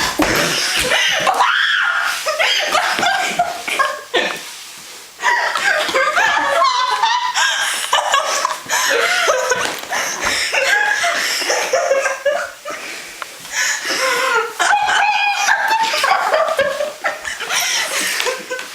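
A group of people laughing hard, with high shrieks and cackles, with a short lull about four to five seconds in.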